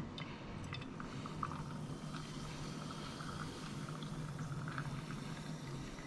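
Cola poured from a plastic bottle into a glass jar over ice, a faint steady pour with the fizz crackling as the jar fills. There is a short click at the start.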